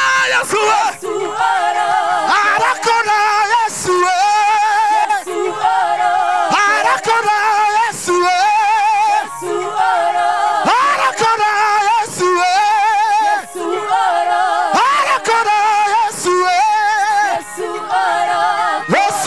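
Singing through handheld microphones and a PA, unaccompanied, in phrases of two to three seconds with a wavering vibrato lead voice.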